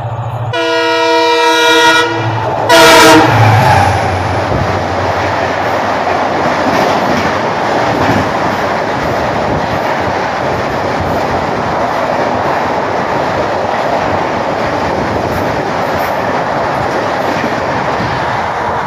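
WDP4D diesel locomotive's horn sounds a blast of about a second and a half, then a shorter, louder blast about three seconds in. The express then runs through at about 130 km/h with a steady, loud rushing of wheels and coaches on the rails.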